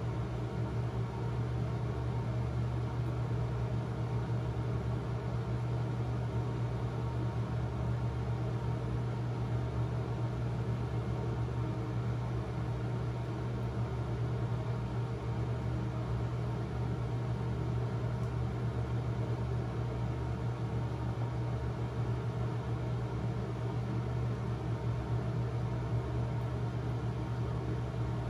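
A fan running steadily: a low, even hum with a hiss over it.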